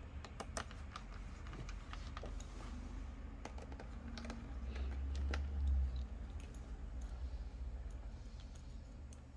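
Small irregular clicks and ticks of a screwdriver driving the small screws back into a laptop's plastic back cover, with a low handling rumble that swells about five seconds in.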